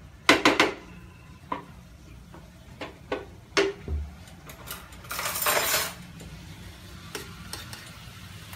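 Spatula knocking and scraping against a frying pan while sliced bitter gourd is stir-fried, a run of sharp clinks and knocks, several close together in the first second. About five seconds in comes a loud hissing rush lasting about a second.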